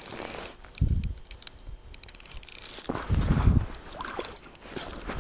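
Light clicking and rustling from fishing tackle being handled: a jig, then a spinning rod and reel. Two louder low thumps on the microphone come about a second in and around three seconds in.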